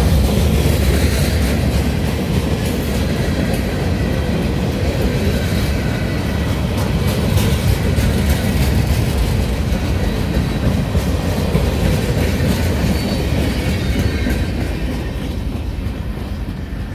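Freight cars of a mixed freight train rolling past close by: steel wheels clattering over the rail joints, with a faint wheel squeal. The noise eases off near the end as the last car goes by.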